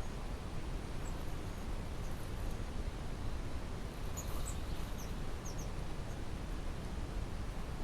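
A few brief, high-pitched bird chirps about halfway through, over a steady background hiss.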